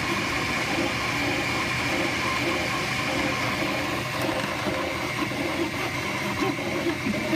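Flashforge Dreamer 3D printer running mid-print: a steady whir of its fans and stepper motors as the print head moves over the bed.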